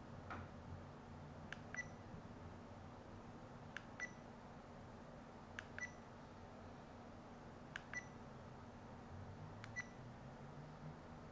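EKEN H9 action camera beeping as its buttons are pressed: five times, about every two seconds, a small click followed by a short high beep.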